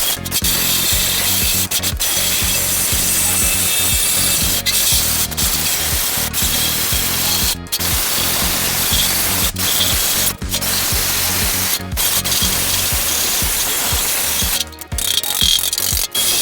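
A power tool running steadily against sheet-steel car body panel, a continuous abrasive rubbing over a low hum, broken several times by very brief dropouts.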